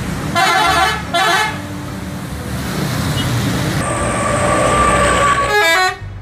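Tour buses sounding multi-tone musical horns over traffic noise: two short blasts about half a second in and again at a second, a longer held horn tone from about four seconds, then a quick run of changing notes near the end.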